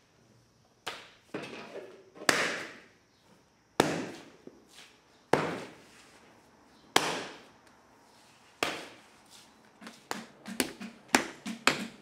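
Hand tools striking into a large mound of wet onggi clay, one sharp hit about every second and a half, each trailing off briefly. Near the end, a quick run of wooden paddle taps beating a clay base flat on a potter's wheel.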